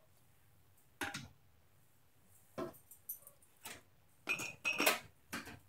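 Glass mason jars and kitchen utensils clinking and knocking on a counter while jars are being filled for canning: about seven separate sharp clinks spread out, two of the later ones ringing briefly like struck glass.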